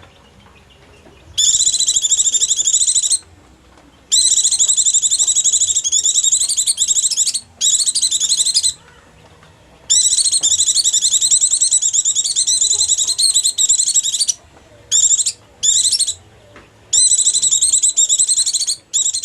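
White-eye (pleci) song: bouts of rapid, high twittering, from half a second to about four seconds long, broken by short pauses. It is a lure call for drawing wild white-eyes.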